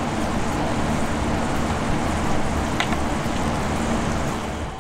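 Steady low rumble and hiss of outdoor background noise, with a faint short tick about three seconds in.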